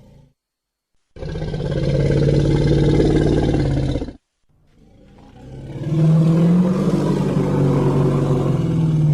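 Tyrannosaurus rex roar sound effects, low-pitched and rumbling. One roar starts abruptly about a second in and cuts off suddenly about four seconds in; after a brief silence another roar swells up and holds loud.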